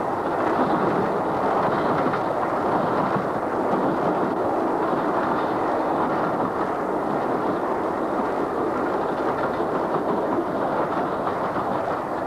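A steady, even rushing rumble that holds at the same level without a break.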